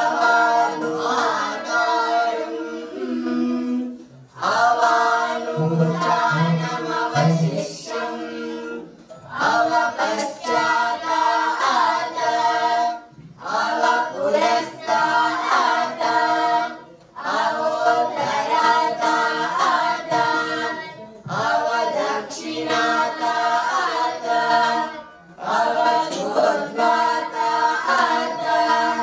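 A group of young voices, girls and young men, singing a prayer song in unison without accompaniment, in short phrases with brief pauses between them.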